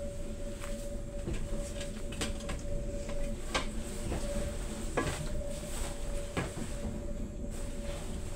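Cabin sound of a Stadler FLIRT electric multiple unit: a low rumble under a steady electrical hum, with scattered sharp clicks and knocks from the carriage.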